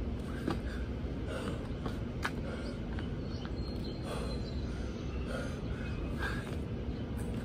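A man doing burpees on gravel: hands and feet landing with a few short scuffs and knocks, and hard breathing between them, over a steady low rumble.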